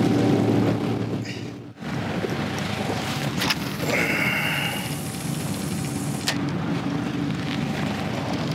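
Boat engine running steadily, with a light rush of wind and water. The sound dips briefly near two seconds in, and a short higher whirr comes about four seconds in.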